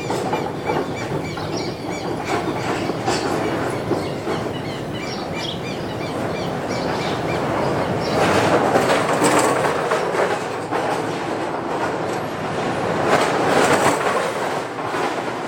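Loose wooden deck planks of an old railway bridge clattering and knocking continuously as vehicles cross, swelling louder twice in the second half. The planks rest on only three supports, so they lift and slap down under passing wheels.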